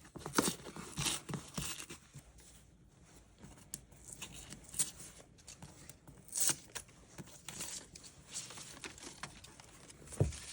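Irregular rustling and crinkling of packaging being handled, with scattered light taps and knocks.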